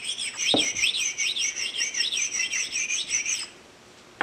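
Precision ground flat stone rubbed back and forth on a steel tool-holder taper, a squeaky scraping whose pitch wavers with each stroke, about three strokes a second, stopping about three and a half seconds in. The stone is knocking down nicks and burrs on the taper.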